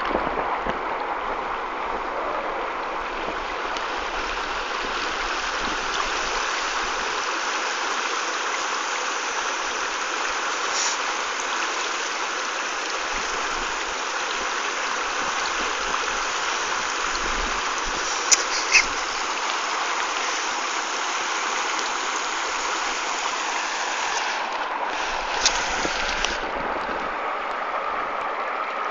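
Shallow river water rushing steadily over rocks. A few sharp clicks come about two thirds of the way through, and one more near the end.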